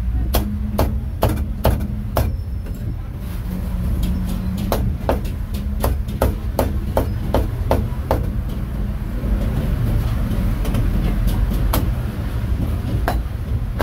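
Cleaver chopping roast meat: sharp, irregular chops, one or two a second and sometimes in quick pairs, over a steady low rumble.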